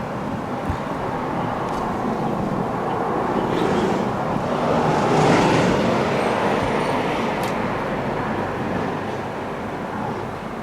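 Road traffic noise with a vehicle passing by, growing louder to a peak about halfway through and then fading.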